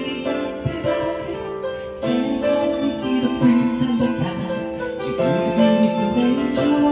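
Instrumental passage of a pop song's backing track: held keyboard chords that change every second or two over a band accompaniment, with no singing.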